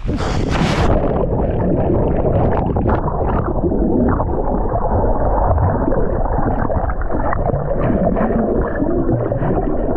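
Plunge into lake water: a brief splash of noise, then about a second in the sound turns muffled as the camera goes under, with dense underwater churning and bubbling for the rest.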